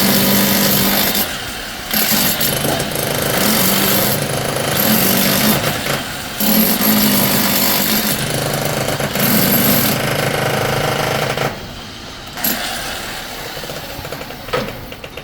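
Jackhammer hammering in runs of a few seconds with short pauses between, stopping for good about three-quarters of the way through, after which only a few scattered knocks are heard.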